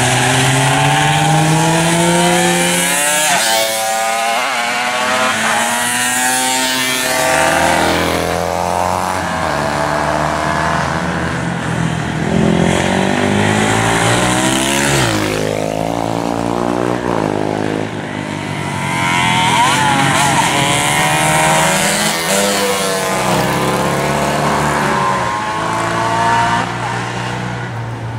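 Several vintage racing motorcycle engines (race bikes from 1969 and older) revving hard and changing gear around the circuit, their rising and falling pitches overlapping, with one engine note dropping sharply about halfway through.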